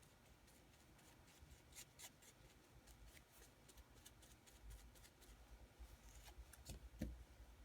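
Faint scraping and light clicks of a small piece of cardboard spreading glue thin on a knee pad, with one louder knock about seven seconds in.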